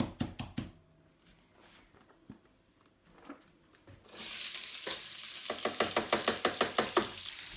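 Chopped vegetables hitting hot oil in a pan, sizzling suddenly about four seconds in, then frying steadily. A quick run of rapid spatula strokes stirring against the pan follows, about seven a second.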